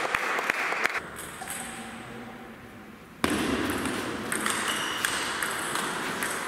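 Table tennis ball striking bats and table during a rally, sharp pings over a hall's background noise, which jumps up abruptly about three seconds in.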